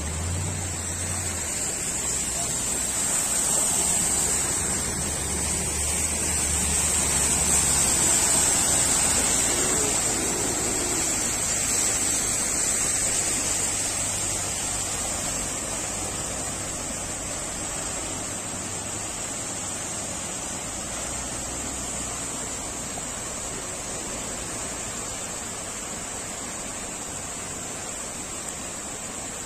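Floodwater rushing across a road, a steady watery noise that swells over the first half and then eases, with vehicles splashing through the water and a low hum in the first several seconds.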